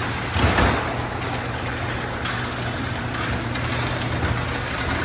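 Overhead Door R80 chain-drive garage door opener running, its motor humming steadily while the large door travels along its tracks with a broad rattle; a louder clatter comes about half a second in. It runs super fast.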